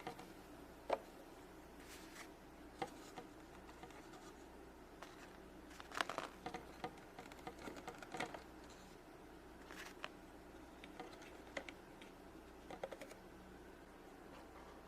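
Small plastic toy figures and a plastic toy fridge being handled: scattered light clicks and taps as pieces are picked up and set in place, bunching together about six seconds in, over a faint room hum.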